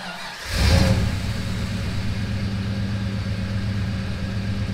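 Car engine revving up briefly about half a second in, then idling steadily.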